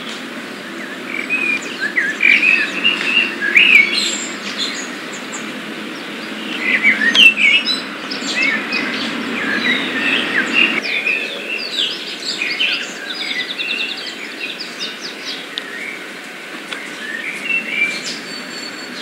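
Several birds chirping and singing in quick, overlapping short chirps and trills, over a steady low rumble that drops away about eleven seconds in.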